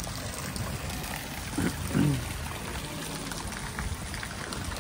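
Water running and splashing steadily. A brief voice is heard in the background about two seconds in.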